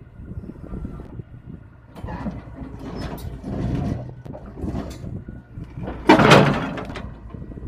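Tata Hitachi Zaxis 210LCH excavator's diesel engine running steadily, with irregular clanks and scraping of steel track and undercarriage parts during a track fitting. The loudest is a sharp metallic burst about six seconds in.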